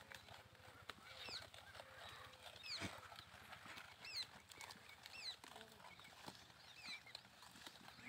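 Near-silent field ambience around a herd of grazing goats: faint soft clicks, with many short high chirps scattered throughout.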